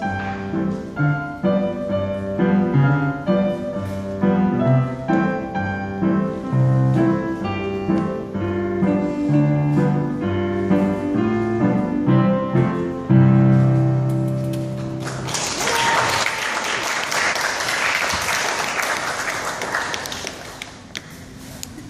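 Piano piece played on a Yamaha digital piano, ending on a long held low chord about 13 seconds in. Audience applause follows and fades out near the end.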